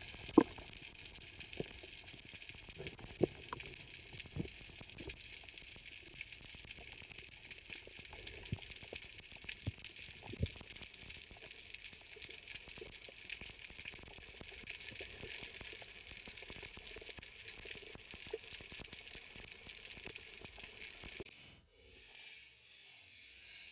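Underwater ambience picked up by an action camera in its housing: a steady hiss with scattered sharp clicks and pops, the loudest about half a second in.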